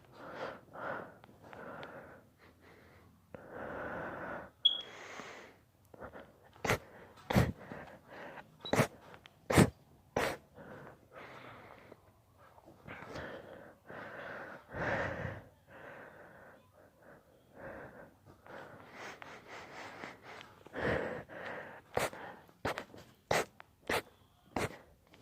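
A person in an induced sneezing fit: drawn-out wheezy build-up breaths alternate with short, sharp sneeze bursts. The bursts come in quick runs about seven to ten seconds in and again near the end.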